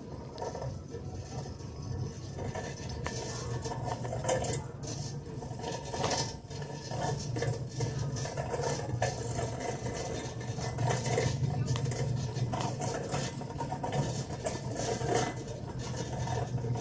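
Shopping cart rolling across a store's hard floor, its wheels and metal frame rattling steadily with many small clatters.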